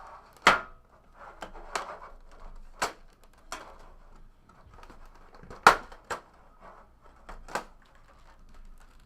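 Trading cards and their packaging being handled on a table: irregular sharp clicks and snaps with light rustling between them, the loudest snap a little before the middle.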